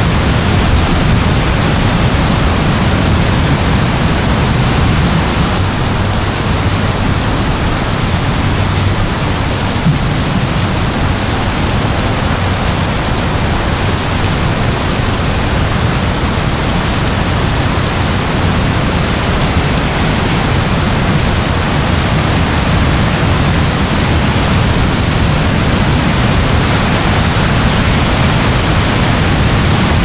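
Heavy rain pouring down steadily: a dense, even hiss with a strong low end and no separate drops or events standing out.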